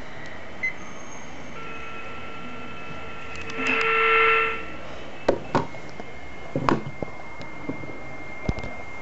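Steady radio static hiss. A short electronic beep comes just under a second in, then a few seconds of steady tones under a swelling rush of louder static that stops abruptly, followed by several sharp clicks of handling the equipment.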